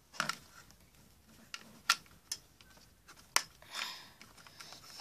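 Plastic Lego bricks being handled and pressed onto the model: several sharp, scattered clicks and a brief rustling scrape.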